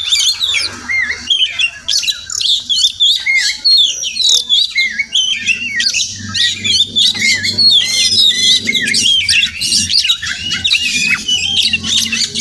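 Oriental magpie-robin singing a loud, continuous, rapid song of varied whistled and chirping notes. A faint low hum sits beneath it from about five seconds in.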